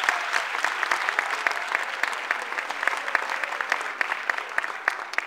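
Audience applauding, many hands clapping, the applause slowly dying down toward the end.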